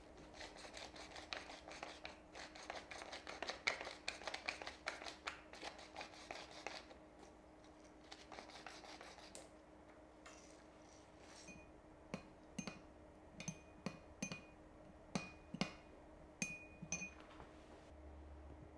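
Kitchen handling sounds: several seconds of quick scraping and rubbing, then, from about twelve seconds in, a string of light, separate clinks of utensils against glass or ceramic dishes.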